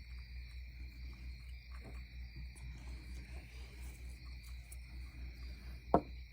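Steady insect buzz, with a low rumble underneath and one sharp click near the end.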